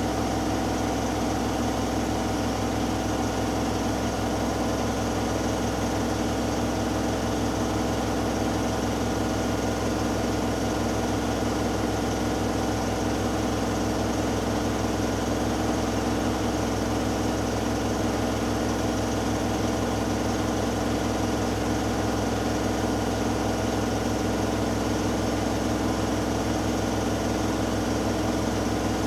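Hoover Dynamic Next washing machine in its final spin, the drum spinning at high speed with a steady motor hum and whir that holds one pitch throughout.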